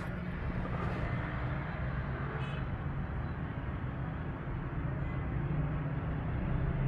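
Steady low rumble and hiss of outdoor background noise.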